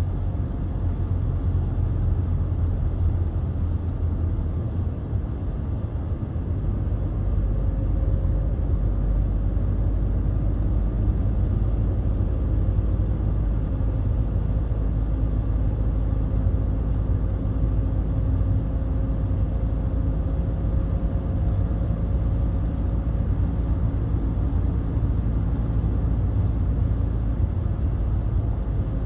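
BMW 320d E91 on the move: a deep, steady rumble of its 2.0-litre four-cylinder turbodiesel (M47D20) and road noise, with a faint engine hum holding an even pitch through most of it.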